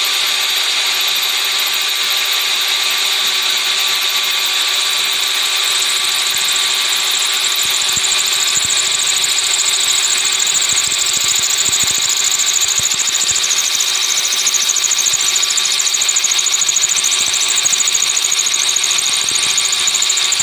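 Black+Decker 12 V cordless drill running continuously with a steady motor whine, drilling into a brick with a larger bit; from about eight seconds in a rough grinding texture joins it and it gets slightly louder.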